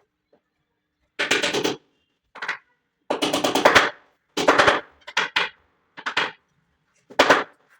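A power tool run in seven short bursts, each a rapid rattle lasting well under a second, the longest about a second long near the middle.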